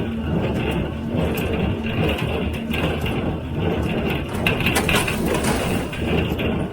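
John Deere 348 square baler with a #42 pan kicker ejector running in the field: a steady, loud mechanical clatter with frequent sharp knocks and clicks.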